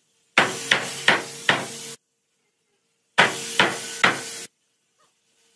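Hammer blows on a wooden door-frame member: a run of four quick strikes, a pause, then three more. Each run cuts off abruptly.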